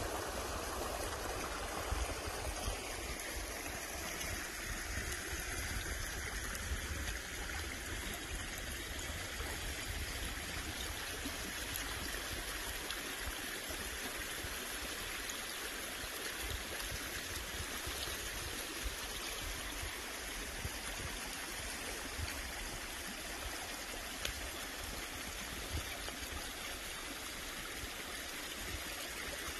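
Small, shallow forest stream running over stones and a little cascade: a steady rush of water.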